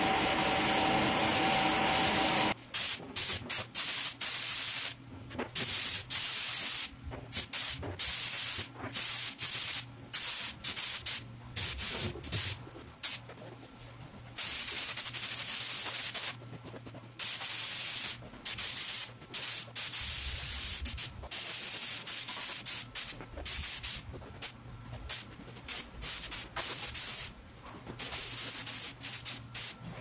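Air spray gun hissing as paint is sprayed: one continuous pass for the first couple of seconds, then many short, irregular trigger bursts.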